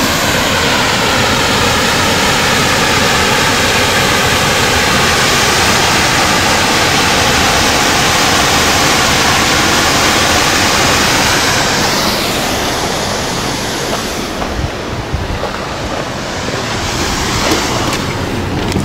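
Mountain stream's waterfall rushing loudly into a deep pool, a steady hiss of falling water. About twelve seconds in the sound turns duller as its high end fades.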